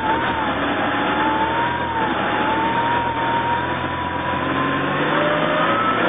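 Mercedes CLK 230 Kompressor's supercharged four-cylinder engine running under light throttle, with a whine that wavers up and down in pitch. About five seconds in, the revs climb and the pitch steps up. The car has a fuel problem that is still being traced.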